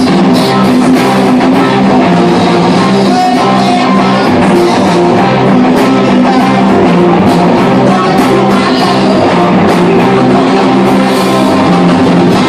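Live rock band playing loud and steady, with electric guitars, bass guitar and a drum kit.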